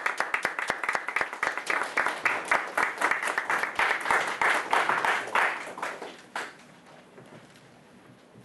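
A small audience applauding, with dense, irregular hand claps that die away about six seconds in.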